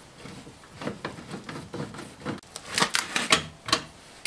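Clicks, scrapes and rattles of a door speaker being unscrewed with a Phillips screwdriver and lifted out of the door, with a run of sharp clicks a little over halfway through.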